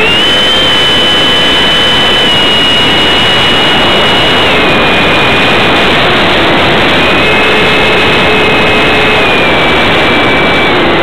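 Ducted fan on an RC model airplane running in flight at close range: a loud, steady rushing roar with a high whine that steps up and down in pitch, higher at the start, dropping about four and a half seconds in, rising again around seven seconds and dropping near the end.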